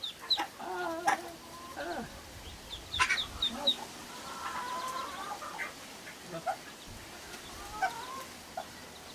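Mother duck giving short, repeated agitated calls as a person comes near her brood, with high thin peeps from her young ducklings mixed in. The calls are her defensive alarm at the approach.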